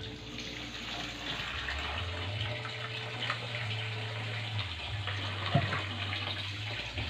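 Water running and splashing steadily, with a steady low hum underneath and a single sharp knock about five and a half seconds in.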